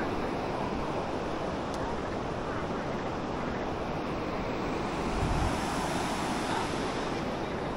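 Steady rushing noise of river water, with wind buffeting the microphone.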